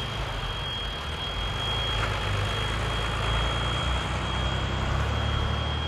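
Excavator working an RWE 100 cutter wheel attachment: a steady, low heavy-machinery drone with a constant high whine over it.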